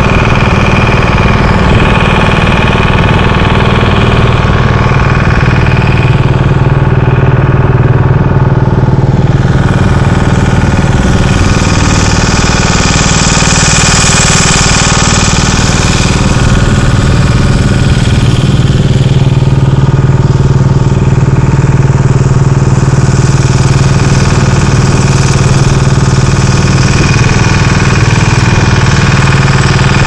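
A motor boat's engine running steadily and loudly. A rushing hiss swells briefly near the middle.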